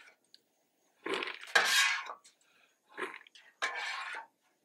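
Metal food-mover scoop scraping across the steel top of a Blackstone griddle, gathering popcorn, in several short scrapes, the longest about a second in and the others near the end.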